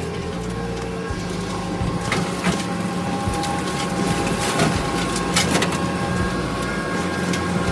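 Kubota SVL65 skid steer running steadily with a high whine while its brush cutter chews through brush, with sharp cracks of wood snapping every second or so.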